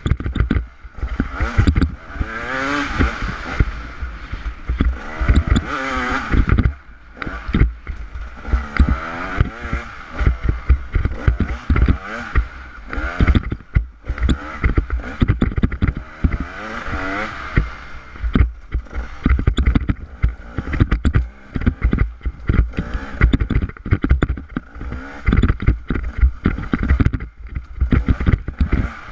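Bike ride over a rocky dirt trail: constant irregular rattling and knocking as the bike and its mounted camera jolt over stones, with wind on the microphone.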